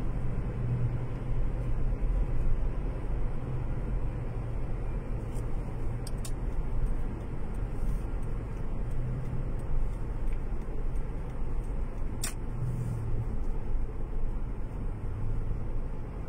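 Car cabin noise while driving at steady speed: a constant low rumble of engine and tyres on the road. A few sharp light clicks, the clearest about twelve seconds in.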